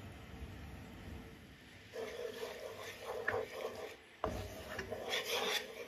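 Spatula stirring and scraping around a saucepan of water and butter heating over medium heat to melt the butter, in irregular strokes starting about two seconds in, with a sharp knock against the pan just after four seconds.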